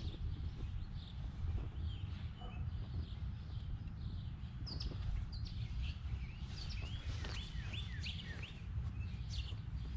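Small birds chirping, with a run of short, quick falling chirps in the second half, over a steady low rumble.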